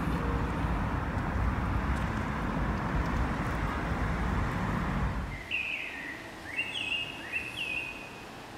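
Steady rumbling noise that cuts off about five seconds in, followed by several short bird chirps, some falling and some rising in pitch.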